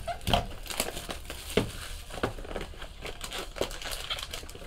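A cardboard trading card box being handled and opened, with light taps of the cardboard and crinkling of the plastic-wrapped pack inside. A few sharper taps stand out near the start and about one and a half and two seconds in.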